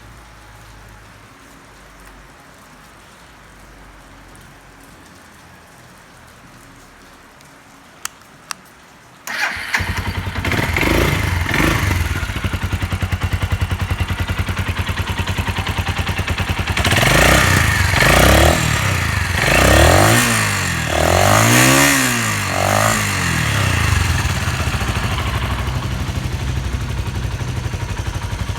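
Two sharp clicks, then a Suzuki Grasstracker Big Boy's 250 cc single-cylinder four-stroke engine starts on the electric starter about nine seconds in and idles. It is blipped several times midway, each rev rising and falling back to idle, with no abnormal engine noise.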